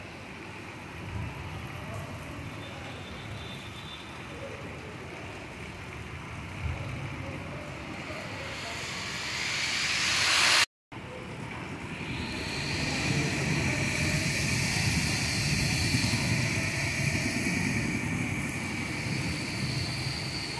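Heavy monsoon rain falling steadily on leaves and roofs. It swells toward the middle, cuts out for a moment, then goes on as a louder, even downpour.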